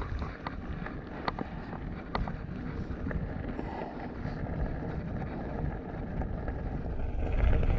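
Wind noise on the microphone of a moving bicycle, with the steady rumble of tyres rolling over loose gravel and a few sharp ticks of stones in the first couple of seconds; the rumble grows a little louder near the end.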